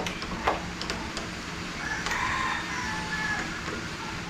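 A rooster crowing once, a single drawn-out call lasting about a second and a half, starting about two seconds in. A sharp click sounds about half a second in.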